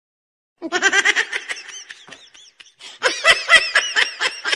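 A person laughing hard in quick, high-pitched bursts, starting about half a second in, easing off for a moment near the middle, then breaking out again.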